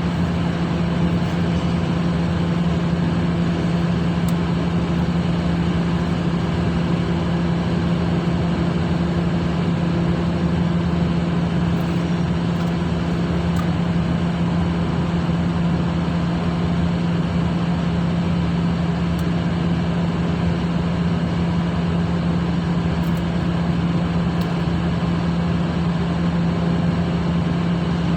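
Ship's machinery running steadily: a constant low engine drone with a strong steady hum.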